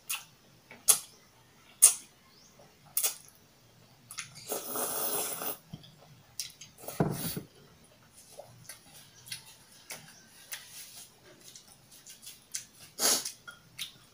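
Close-miked eating sounds of kimchi ramen: sharp mouth clicks and smacks, a noisy slurp about five seconds in, then a run of small wet chewing clicks.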